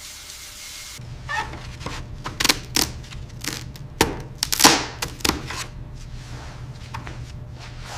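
Irregular light taps and clicks of hands working craft materials, about a dozen over several seconds, the loudest about four to five seconds in, over a low steady hum. The first second is a steady hiss before the tapping starts.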